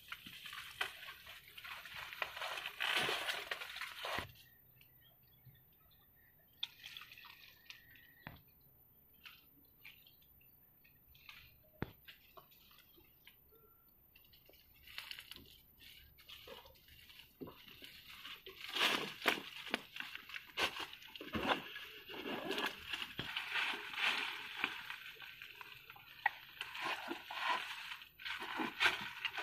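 Dry leaves, twigs and plant stems rustling and crackling as they are handled and pushed through. A dense burst of crackling comes at the start, then it goes quieter with scattered snaps, and busy rustling and crackling returns for the last ten seconds or so.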